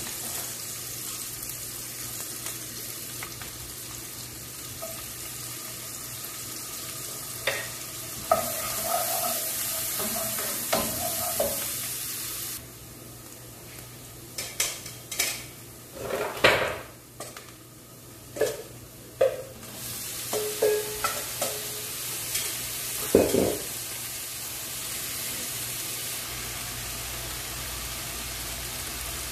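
Food sizzling in a nonstick frying pan, with a utensil stirring and knocking against the pan. In the middle the sizzle drops and a run of clatters comes as sliced mushrooms go into the pan and are stirred, and then the sizzle picks up again.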